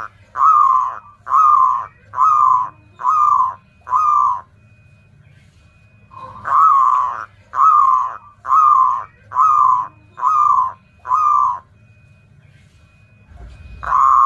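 Zebra dove (perkutut) singing: two phrases, each a longer opening coo followed by five or six short, ringing coos a little under a second apart, with a third phrase starting near the end.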